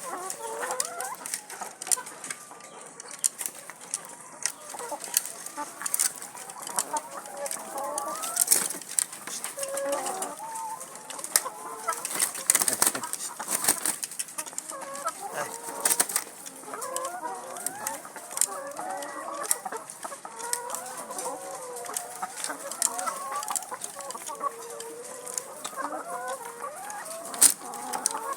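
Many laying hens clucking and calling, with frequent sharp clicks and taps scattered through.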